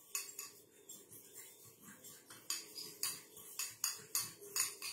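Spoon stirring a thick yogurt-and-spice marinade in a ceramic bowl, clinking and scraping against the bowl in quick, irregular strokes, about two a second.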